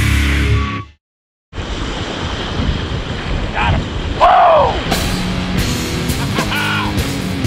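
A short logo sound, a brief gap, then surf and wind buffeting the microphone at the shoreline. A rising-and-falling swoop sounds near the middle, and rock music comes in about five seconds in.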